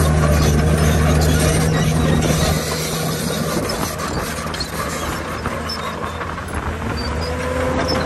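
Heavy diesel earthmoving machinery running, loudest for the first couple of seconds and then easing off. A thin, slightly rising squeal comes in near the end.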